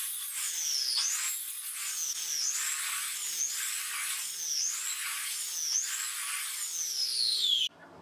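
Small electric bench cutting machine running at high speed with a high whine, its pitch dipping and recovering about once a second as the blade is loaded in the wood. The sound cuts off abruptly near the end.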